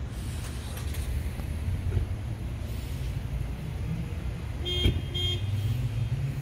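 Steady rumble of car engines and traffic across a parking lot, with two short car-horn toots about five seconds in.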